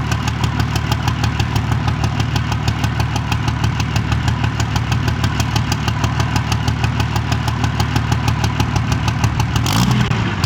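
Cummins inline-six turbo diesel idling with a steady, even pulse. Near the end it revs briefly, rising and falling in pitch.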